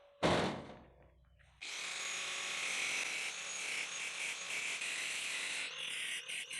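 Angle grinder cutting steel channel along a marked line: a steady high, hissing whine that starts about a second and a half in, its pitch wavering slightly near the end as the disc takes load. A brief sudden noise comes just before it, right at the start.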